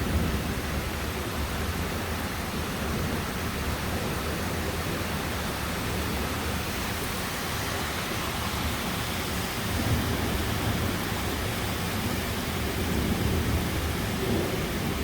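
Heavy rain and strong wind in a thunderstorm downburst, a steady dense rush with a deep rumble underneath.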